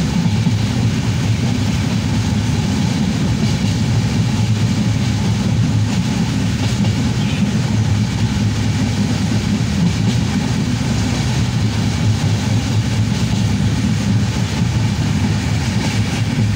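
Passenger train running steadily, heard from a window seat inside the carriage: a continuous low rumble of wheels on rails.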